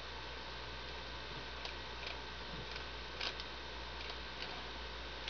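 Steady electrical hum and room tone, with a few faint clicks from a computer mouse as the page is scrolled.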